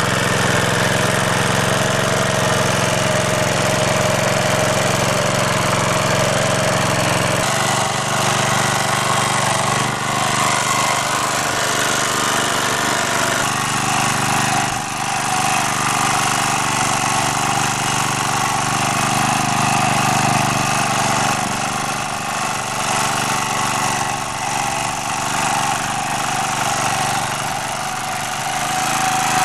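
MD3 walk-behind tractor's engine running steadily as it drives its rotary tiller through soil in first gear. The engine note shifts about seven seconds in and again a few seconds later.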